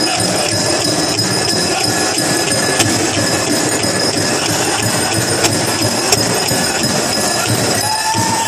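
A dense, steady jingling of many dancers' leg bells over a powwow drum song, with occasional sharp drum strikes. Near the end a high singing voice comes in on a wavering held note.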